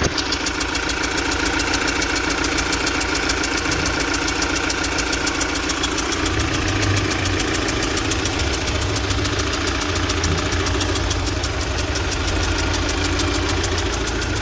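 UMZ-4216 (Evotech 2.7) inline four-cylinder petrol engine idling up close at cylinder one, with a fast, even knocking tick over the running. The owner says it is most likely a loose intake valve seat in cylinder one, which also fires back into the intake manifold and makes the engine misfire.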